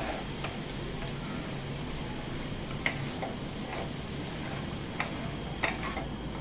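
A spatula stirring sabudana khichdi in a kadai, with scattered light scrapes and taps against the pan about once a second, over a steady low hum.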